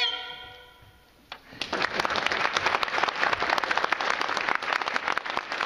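The fiddle's final note rings away into the hall's reverberation, and after a brief pause an audience breaks into applause about a second and a half in, building quickly and carrying on steadily.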